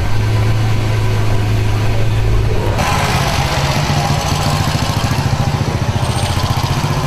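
Lamborghini Veneno's V12 engine running at low speed as the car rolls slowly, a steady low burble that pulses evenly. The sound changes abruptly about three seconds in, where the recording cuts to another pass of the car.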